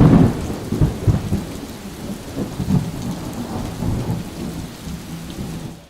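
Low rumble and irregular thumps of the camera microphone being buffeted, loudest at first and fading slowly, then cutting off suddenly.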